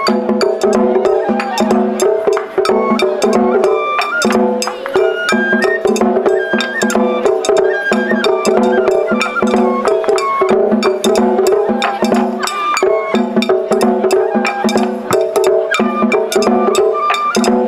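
Live Japanese festival bayashi music: a high bamboo-flute melody over rapid, many-per-second strikes on drums and a small hand gong, keeping a steady repeating beat.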